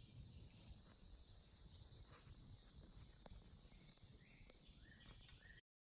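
Faint outdoor ambience with a steady high-pitched drone of insects, with a few faint ticks and short chirps, cutting off abruptly near the end.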